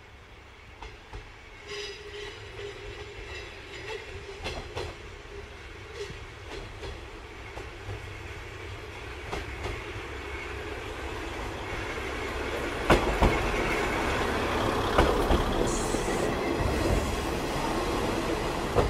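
KiHa 20 diesel railcar approaching and pulling into a station, growing steadily louder. Its wheels knock over the rail joints, plainly in the second half, and a short high squeal comes near the end.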